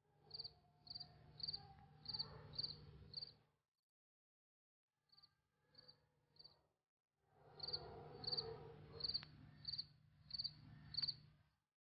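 Crickets chirping, high and evenly spaced at about two chirps a second, over a low steady hum. The chirps come in three runs: six, then three, then six, with the sound dropping out completely between them.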